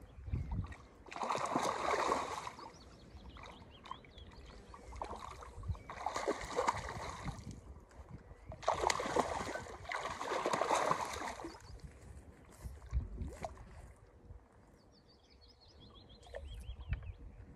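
Water splashing in three bursts of one to three seconds as a hooked fish thrashes at the surface while being played in close to the bank.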